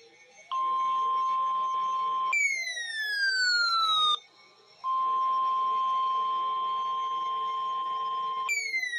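Emergency weather-alert alarm tones: a steady tone near 1 kHz alternates with a tone that falls in pitch over about two seconds. The steady tone sounds twice, the second time for about three and a half seconds, with a short break after the first falling tone and a second falling tone beginning near the end.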